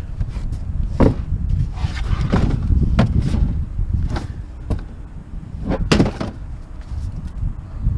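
Knocks and clatter of curbside scrap and e-waste being picked up and shifted by hand, about six sharp knocks with the strongest near 1, 3 and 6 seconds in, over a steady low rumble.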